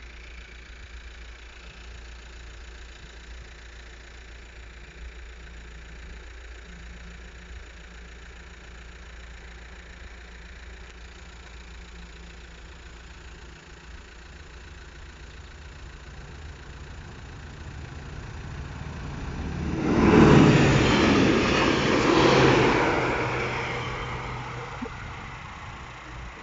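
A yellow diesel track maintenance machine passing on the railway line: its engine and wheel-on-rail noise build over several seconds, are loudest in two close peaks as it goes by, then fade as it moves away.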